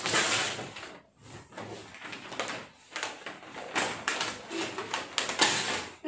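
Gift wrapping paper being torn off and crumpled as a present is unwrapped, in uneven crackling bursts, loudest at the start and again near the end.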